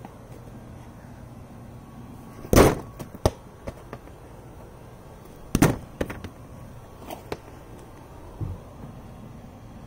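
A soccer ball kicked against wooden steps: two loud bangs about three seconds apart, each followed by a few lighter knocks as the ball bounces back and lands.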